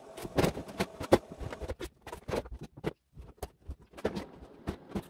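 Clear plastic bags holding shoes rustling and crinkling as they are lifted and handled, with irregular knocks of shoes and boxes.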